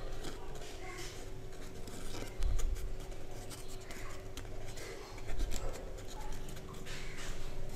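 Pleated paper being bent and creased by hand: dry crinkling and small crackles of the folds, with two dull low bumps from handling.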